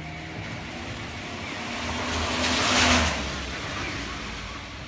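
A car passing on the wet road: its tyre hiss swells to a peak about three seconds in, then fades away.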